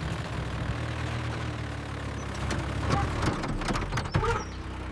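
Mini excavator's diesel engine running at a steady idle, a low even hum, with a few short knocks about three to four seconds in.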